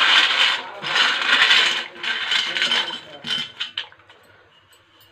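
Dry penne pasta rattling and sliding off a steel plate into a steel pot of boiling water, in three clattering pushes. It thins to a few light ticks by about four seconds in.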